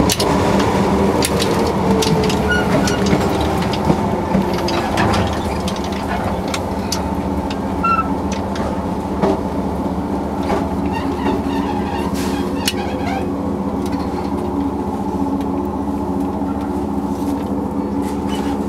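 Inside a 115 series 3000 subseries electric multiple unit near the coupler: the running noise falls in pitch over the first few seconds as the train slows, with scattered coupler knocks. It then settles into a steady hum of onboard equipment, as when the train has come to a stop.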